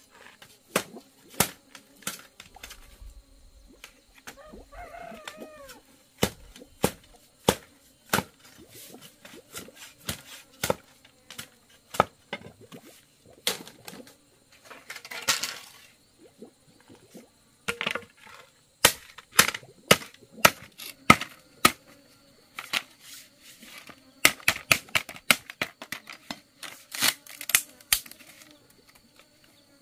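Bamboo being split into strips with a machete: a run of sharp, irregular cracks and knocks, with a longer splitting rasp about halfway through and quick runs of crackling later on as the strips tear apart.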